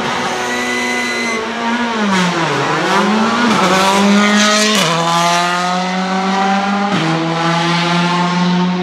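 Škoda Fabia R5 rally car's turbocharged four-cylinder engine running at high revs. Its pitch dips and climbs back about two to three seconds in, then drops abruptly twice, about five and seven seconds in, holding steady between.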